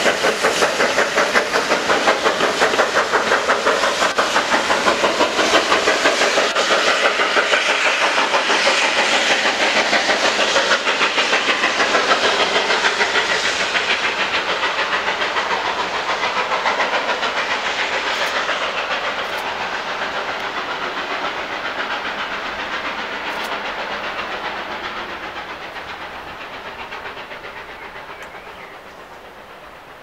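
Steam exhaust beats of GWR Manor-class 4-6-0 'Foxcote Manor', a two-cylinder locomotive, working hard as it pulls a train away. The quick, even chuffing fades steadily as the train recedes into the distance.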